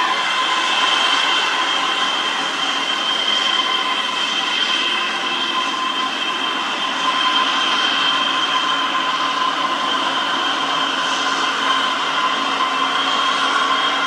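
Diesel engines of loaded cargo trucks droning steadily as they climb a hill road, with a steady high whine over the drone.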